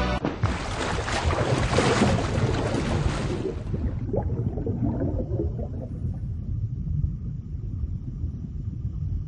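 Water sound effect for a logo animation: a sudden rush of splashing, bubbling noise that fades after about four seconds into a low underwater rumble.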